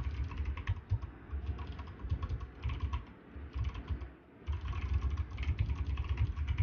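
Fast typing on a System76 Launch mechanical keyboard fitted with clicky, tactile Kailh Box Jade switches, with a break of about a second a little past the middle.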